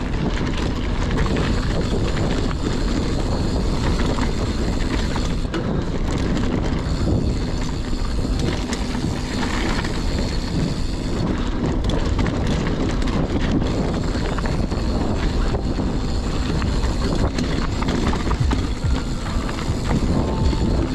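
Mountain bike riding over a rough dirt trail: a steady rumble of tyres on the ground with constant rattling and clattering from the bike as it goes over bumps.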